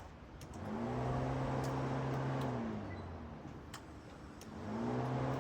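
A small electric motor in the car whirs up, runs steadily for about two seconds and winds down, then spins up again near the end, with a few light clicks between.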